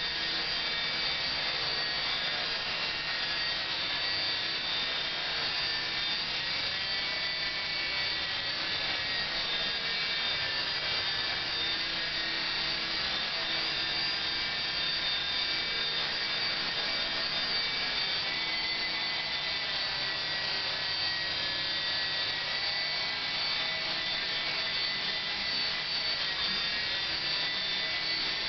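Belt CP V2 electric RC helicopter, fitted with a CopterX rotor head and tail, hovering: a steady whine of the motor and drive with the rotor blades turning. The pitch drifts slightly up and down now and then.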